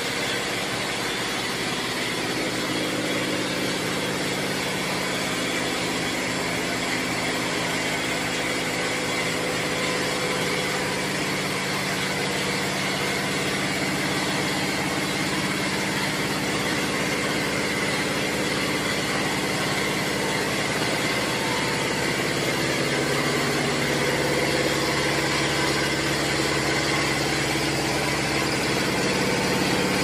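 Steady hum and rush of boiler-room machinery running, with several steady tones underneath that shift slightly in pitch about two-thirds of the way through.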